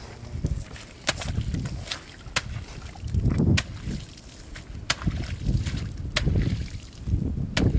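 A long-handled hoe chopping repeatedly into wet ground and water morning glory vines. There are six strokes, about one every second and a quarter, each a sharp crack, with a low rumble underneath.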